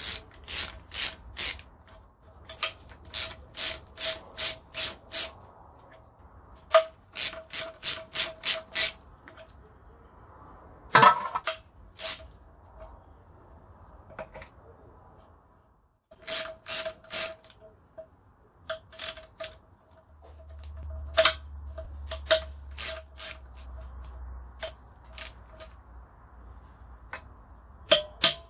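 Hand socket ratchet clicking in quick runs of about three to four clicks a second, undoing bolts in an Audi 4.2 V8's oil pan, with one louder knock about eleven seconds in.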